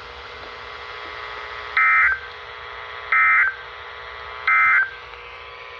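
Emergency Alert System end-of-message data bursts: three short bursts of two-tone digital data screech, a little over a second apart, over a faint steady receiver hiss and hum.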